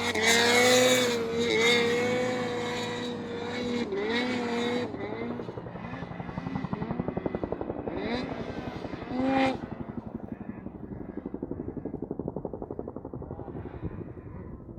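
Snowmobile engine running hard under throttle, its pitch dipping and rising with the throttle, loud for the first five seconds. It then drops to a quieter, fast-pulsing running sound, with one brief rev about nine seconds in.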